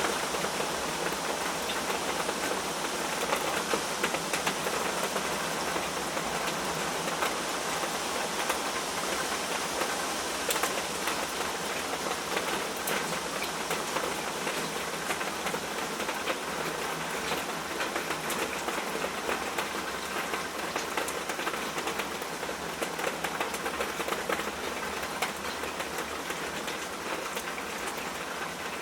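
Steady rain falling, with a continuous hiss and many small drops ticking on a surface.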